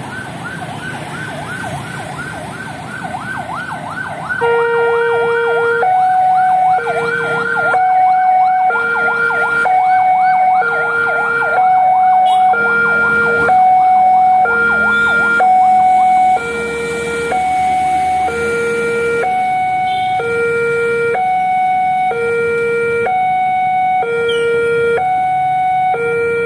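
Railway level-crossing electronic warning alarm, sounding because a train is approaching and the barriers are closing. It opens with a fast warbling chirp; about four seconds in, a two-tone alarm starts, a low and a higher tone taking turns about once a second.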